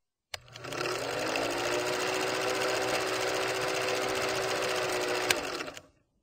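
Old film projector running: a fast, even mechanical clatter with a motor hum that rises in pitch over the first second as it gets up to speed. A sharp click starts it, another click comes near the end, and then it dies away.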